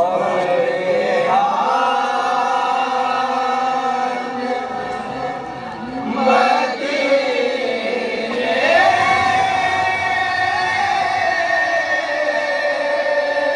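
A group of male voices reciting a naat, the unaccompanied Urdu devotional chant in praise of the Prophet, in unison, with long held notes and slow rises and falls in pitch.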